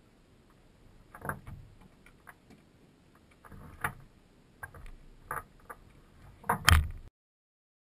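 A few scattered knocks and clicks at irregular intervals, the loudest pair near the end, after which the sound cuts off suddenly.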